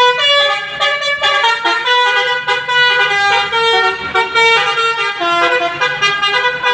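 Bus telolet horn (a Basuri multi-tone musical horn) playing a fast tune, the notes changing several times a second without a break.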